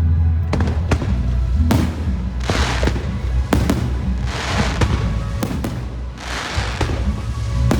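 Fireworks show: sharp bangs of shells bursting, several in quick pairs, and a hissing crackle from the bursts every couple of seconds, over the show's music soundtrack.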